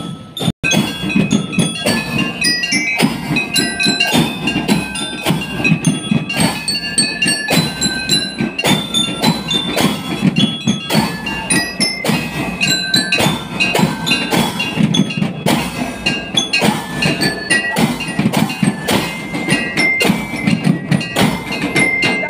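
School marching band playing: drums beating a steady, dense rhythm, with a high bell-like melody ringing over them.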